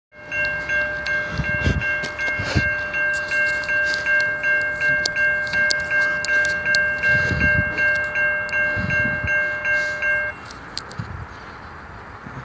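Electronic railroad grade-crossing bell ringing steadily at about three strokes a second, then cutting off suddenly about ten seconds in. A few low thumps are heard under it.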